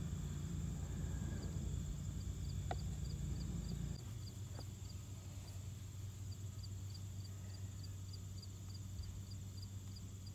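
Insect chirping in a steady rhythm, about three short high chirps a second, over a low steady hum that drops in level about four seconds in.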